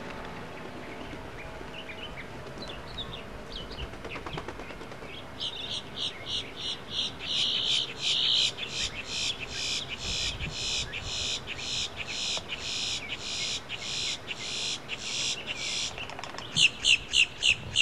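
A long run of high, evenly spaced chirps from a calling animal, about three a second, starting a few seconds in, then a quicker, louder burst of five chirps near the end.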